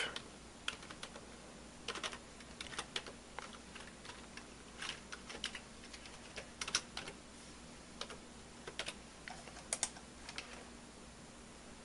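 Computer keyboard being typed on: irregular short runs of key clicks with pauses between, over a faint steady hum.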